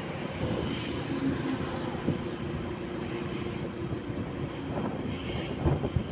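Motorcycle engine running steadily at cruising speed on the open road, with wind rushing over the microphone and a few wind buffets near the end.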